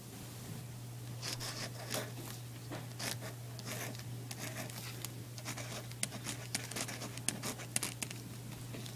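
Felt-tip marker writing on paper: a run of short, scratchy strokes as letters are drawn, over a steady low hum.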